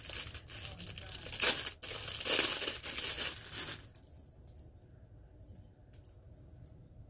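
Plastic packaging crinkling and tearing as it is pulled open by hand, with louder surges, stopping about four seconds in. A few faint clicks follow.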